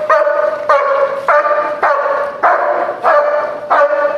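German Shepherd protection dog barking repeatedly and steadily, about seven loud barks in a row, one every half second or so. It is aggressive guard barking at a decoy in a bite jacket who circles the dog while it holds its position beside its handler.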